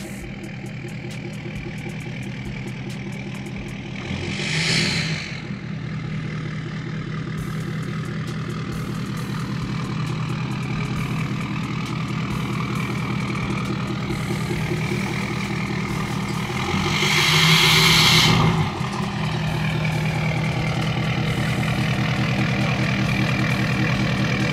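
A car engine idling steadily, with two loud bursts of rushing, hissing noise: a short one about four seconds in and a longer, louder one about seventeen seconds in.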